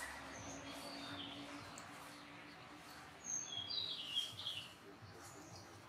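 Small bird chirps: a couple of short high notes in the first second, then a quick run of stepping, falling notes about three and a half seconds in, over faint background hiss.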